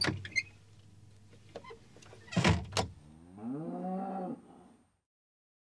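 Two sharp wooden knocks, then a cow mooing once, a call that rises in pitch, holds for about a second and falls away.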